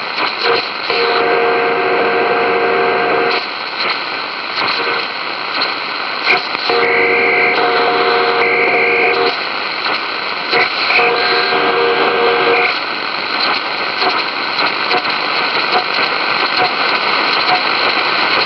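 C.Crane shortwave radio playing steady static with an unidentified signal. Three times, a chord of steady tones comes in for two or three seconds and then drops back to hiss.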